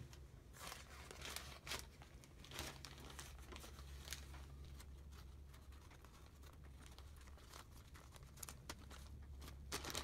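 Faint crinkling of a clear plastic zip-lock bag handled by gloved hands, in the first few seconds and again near the end, over a steady low hum.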